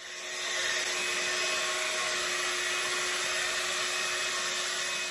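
Handheld hair dryer running, coming up to speed at the start and then blowing steadily, with a steady whine over the rush of air.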